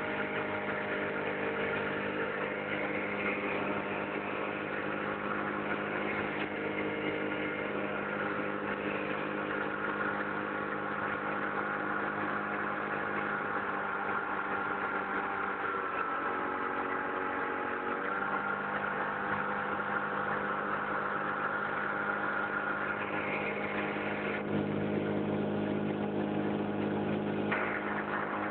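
1949 Johnson SD-20 16 hp two-stroke outboard motor running steadily, pushing the boat along under way. Its note sags slightly around halfway through and steps back up a couple of seconds later.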